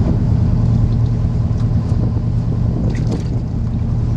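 Steady low hum of a fishing party boat's engine running, with a few faint ticks about three seconds in.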